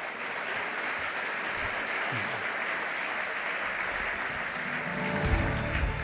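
Audience applauding steadily after a speech. About five seconds in, music with a heavy bass line comes in under the clapping.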